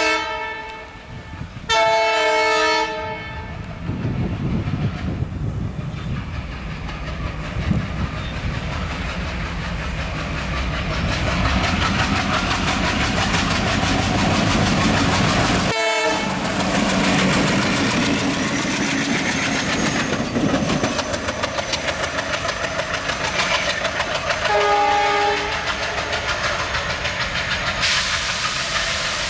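Two ALCO diesel locomotives in multiple (WDG-3A and WDM-3A, 16-cylinder ALCO 251 engines) passing under power: engines chugging hard and wheels clattering over rail joints. Horn blasts twice near the start, briefly about halfway, and once more near the end, with a faint high whine in the second half.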